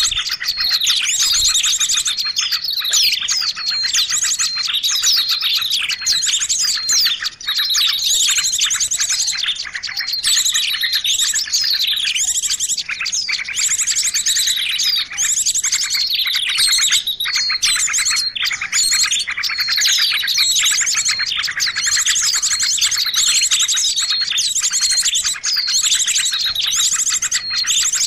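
A dense, unbroken mix of many small songbirds chirping and trilling over one another, with fast rattling trills and sharp high chirps. It is a bird-lure (suara pikat) track that layers the calls of small species such as prinias, ciblek and cipoh to draw wild birds in.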